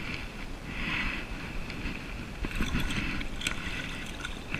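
Water splashing and lapping against an inflatable float tube, with low wind rumble on the microphone and a few faint knocks.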